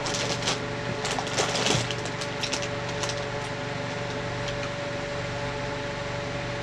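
Steady mechanical room hum, like an air conditioner or fan running, with scattered light rustles and clicks over the first few seconds.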